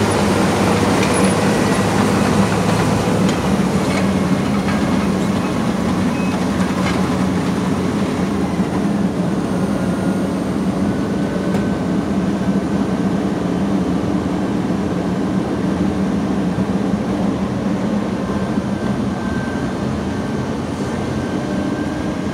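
Wirtgen W 210 i cold milling machine running steadily: a loud, even diesel drone with some mechanical rattle, its conveyor belt running.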